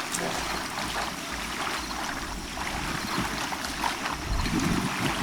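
Bay water lapping and washing, a steady soft rush of water.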